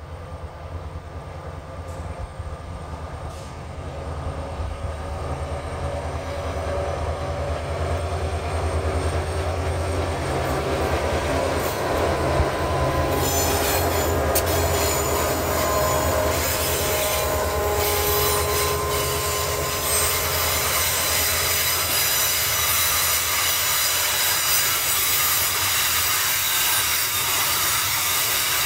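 A freight train approaching and passing, growing louder over the first ten seconds or so, with a steady low rumble underneath. About halfway in, the wheels start squealing on the rails in several high tones that carry on to the end.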